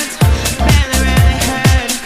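Electronic dance music with a steady kick drum, about two beats a second, under a synth melody.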